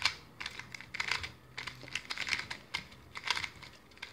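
Plastic magnetic 2x2 speedcube being turned fast by hand: irregular runs of quick clacking clicks as the layers snap round, with brief pauses between runs. The cube is only lightly lubricated and its turning is a little dry.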